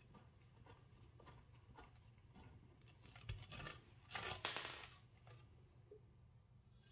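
Faint, irregular clicks of a hand ratchet working the last bolt on an M119 engine's upper oil pan, with a louder rasping burst about three to five seconds in.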